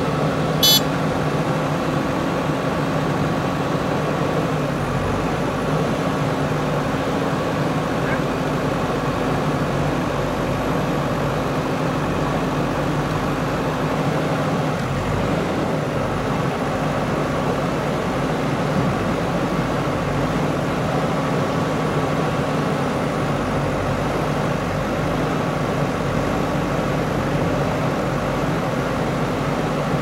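JCB 3DX backhoe loader's diesel engine running steadily. A brief sharp knock comes about a second in.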